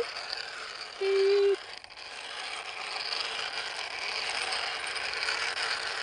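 Plastic toy dump truck's wheels rattling and scraping steadily as it is dragged by a string over dirt. About a second in, a brief loud steady hooting tone lasting about half a second.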